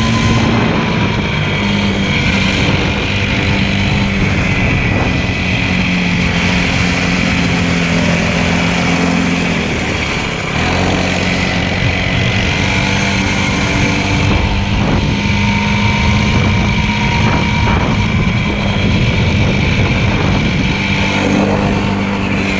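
Motorcycle engine running under way. Its pitch shifts a few times, dropping about six seconds in and picking up again after a short lull near ten seconds.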